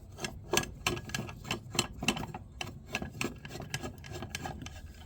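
A run of irregular light clicks and taps, about three or four a second, as small metal and plastic mirror parts are handled.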